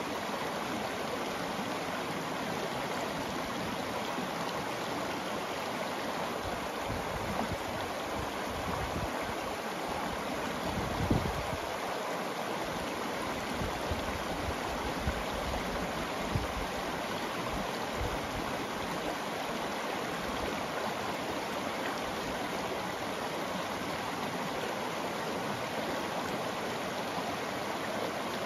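Shallow mountain stream running steadily over a cobble bed and a small riffle, a constant rush of water. A few brief low rumbles come through in the middle, the strongest about halfway through.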